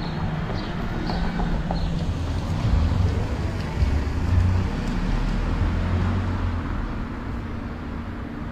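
Volkswagen ID. Buzz electric van driving slowly past: mostly tyre and road noise over a low hum, loudest about three to four and a half seconds in as it goes by, then easing off.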